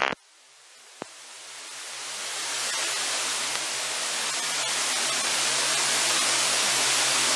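Aerotrek A240 light sport aircraft's engine and propeller heard from inside the cockpit, building from faint to loud over the first three seconds as power comes up on the runway. It then holds as a loud, steady rushing hiss with a low drone underneath. A single click about a second in.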